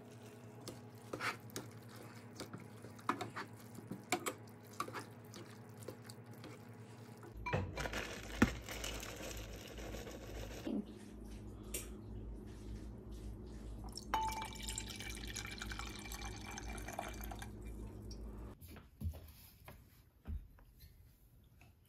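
Faint kitchen handling sounds: metal tongs clicking against a pot as spaghetti is tossed, over a steady hum. The background changes abruptly a few times, with more clatter and handling noises.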